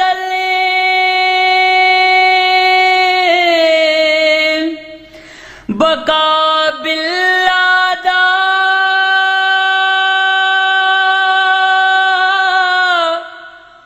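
A solo male voice, unaccompanied, singing a Punjabi Sufi kalam and holding long high notes: the first sinks in pitch after about three seconds and fades, then after a breath a second note is held steady for about seven seconds before trailing off near the end.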